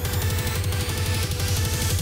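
Electronic background music with a fast, pulsing bass line.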